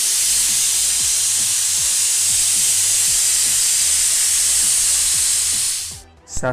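Pressure cooker whistling: a loud, steady hiss of steam escaping past the weighted whistle valve once the cooker is up to pressure, cutting off near the end.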